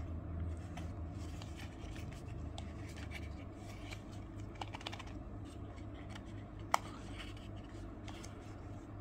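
Small paperboard carton of shaving cream being handled and its tucked flaps worked open by fingers: faint scratching and rustling of old cardboard, with one sharp click a little over two-thirds of the way through.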